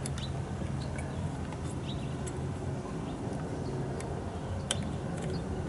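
A few faint, small metal clicks as hex nuts are threaded by hand onto the clutch pressure-plate studs, over a steady low hum.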